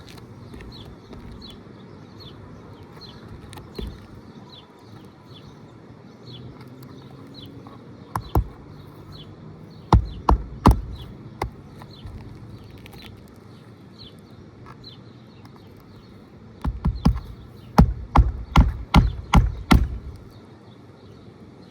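Hammer driving roofing nails into an asphalt shingle: a few separate strikes, then a quick run of about ten blows near the end.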